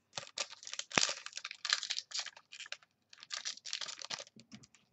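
Wrapper of a Panini Contenders football card pack being torn open and crinkled: a rapid, irregular run of crackles with a sharp snap about a second in. The pack is tough to open.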